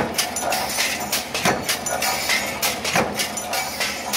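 Punch press with a hinge cutting die stamping metal strip, a heavy clank about every one and a half seconds, with lighter clacks in between from the pneumatic air feeder advancing the strip.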